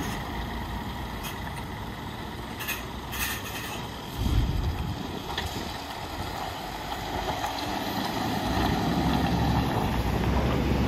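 Scania R450 articulated tipper lorry's diesel engine pulling away at low revs. The engine swells about four seconds in and grows steadily louder toward the end as the truck moves off. A few short sharp clicks come in the first three seconds.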